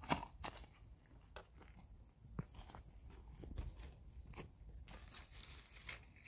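Faint rustling with scattered small crackles and taps: footsteps on dry orchard ground and a quince tree's leaves being brushed as a hand reaches in for the fruit.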